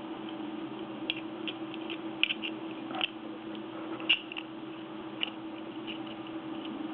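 Scattered small clicks and taps from handling a five-pin half lock cylinder with tools, about half a dozen irregular ticks over a steady low hum.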